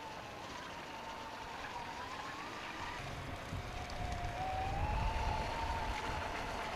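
A radio-controlled model powerboat's motor whining at high speed, its pitch dipping and rising a little. It grows louder as the boat comes closer, and a low rumble joins about halfway through.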